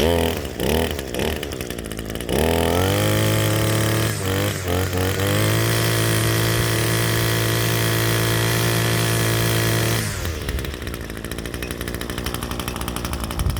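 Echo SRM-230 string trimmer's small two-stroke engine, running on a newly replaced carburetor, revved up in a few blips, then held at high speed. About ten seconds in it drops back to a lower idle.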